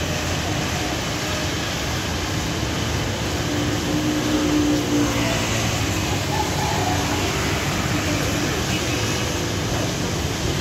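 Busy street traffic noise: motorcycle and vehicle engines moving along the road, with a crowd's voices mixed in. A steady tone stands out briefly about four seconds in.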